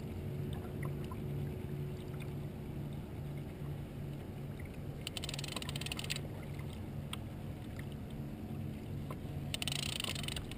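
Fishing reel being cranked while playing a hooked salmon, a low whir pulsing about two to three times a second. There are two short runs of fast ratchet-like clicking, about five and nine and a half seconds in.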